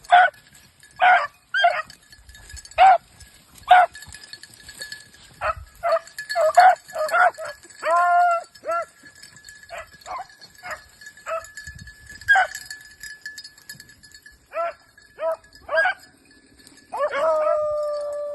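Beagles barking and baying, with short, irregular barks at a few a second at times, and a longer held note near the end.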